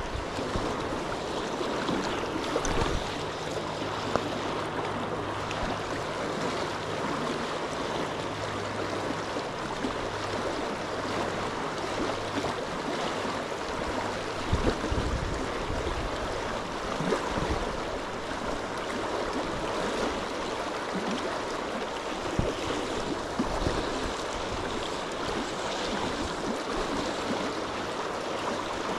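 River Tweed water flowing and rippling steadily, with a faint low hum through the first half and a few soft knocks.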